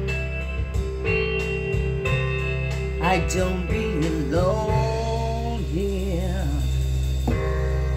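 Guitar-backed rock ballad playing steadily, with a singer gliding between long held notes over it, sung without clear words.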